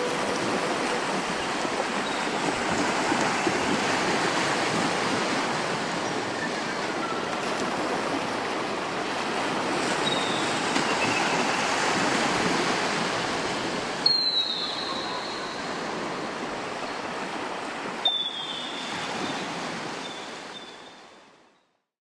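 Ocean surf washing steadily, with three short, falling bird calls in the second half. The sound fades out near the end.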